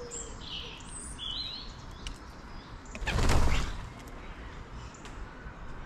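Garden birds chirping in short, high calls, with a loud rushing burst of noise lasting under a second about three seconds in.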